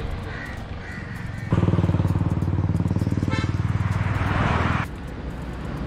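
Road ambience, then a motor vehicle's engine running loudly close by from about a second and a half in, cutting off suddenly about five seconds in.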